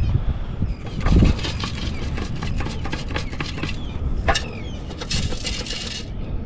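Metal beach sand scoop digging into wet sand and sifting it: gritty scraping and rattling, a heavy thump about a second in, and a hissing rush of sand sifting out near the end, over a steady low rumble.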